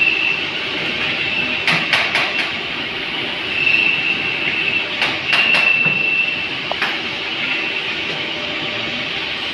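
Steady running noise of workshop machinery with a high whine that comes and goes. Over it are short runs of clicks from keys pressed on a CNC control keypad, about two seconds in and again about five seconds in.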